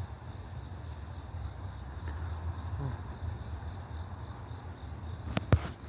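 Steady chirring of night insects, with a low hum underneath. There are two sharp knocks about five and a half seconds in.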